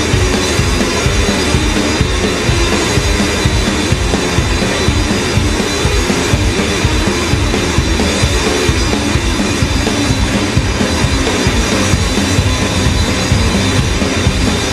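Live rock music from a guitar-and-drums duo, played loud and without vocals: a drum kit is beaten hard in a steady, driving beat under the guitar.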